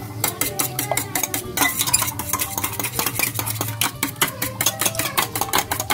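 Raw eggs being beaten with a metal utensil in a small stainless steel pot: a quick, continuous run of metal-on-metal clinks, several a second, with the slosh of the egg.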